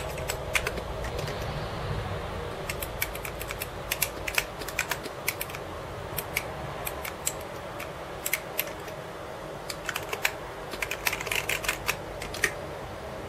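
Computer keyboard keys, the arrow and modifier keys, pressed in short irregular clusters of clicks, over a steady background hum.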